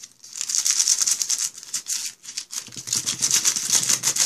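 Paper band-aid wrapper crinkling and rustling between the fingers as a rapid, dense crackle, with a duller rubbing joining in about halfway through.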